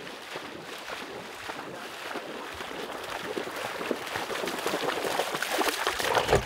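A dog bounding and splashing through shallow pond water on a retrieve, the splashing growing louder as it comes closer and ending as it reaches the grassy bank.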